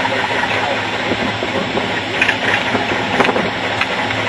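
Antique International Harvester tractor engine running steadily under load during a tractor pull, with a few sharp clicks about two and three seconds in.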